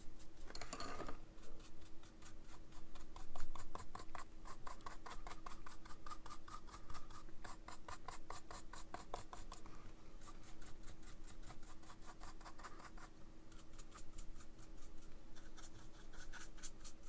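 Paintbrush dry-brushing paint onto a hard plastic figure's gun: quick, repeated scratchy strokes of the nearly dry bristles rubbing over the raised edges.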